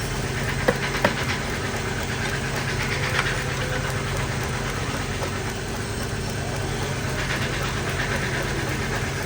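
Woodturning lathe motor running steadily, with two sharp knocks about a second in.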